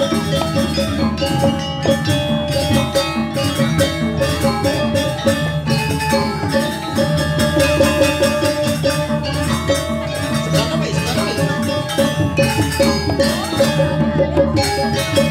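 Balinese gamelan playing: metal-keyed instruments struck in quick, busy strokes over a steadily repeated note, with drums underneath, accompanying a dance.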